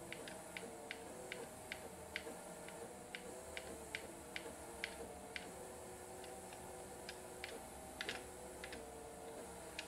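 Light, irregular clicks, two or three a second, over a faint steady hum, as the Gatton CNC router's Z axis is jogged up in small steps.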